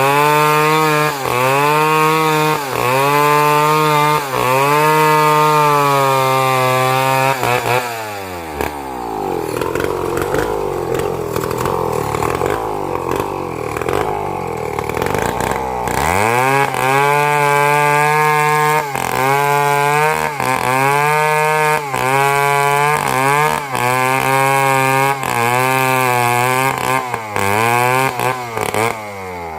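Chainsaw cutting wood at high revs, its pitch sagging about once a second as the chain bites. About eight seconds in it drops to a low idle, then revs up again about halfway through and goes back to cutting with the same repeated dips.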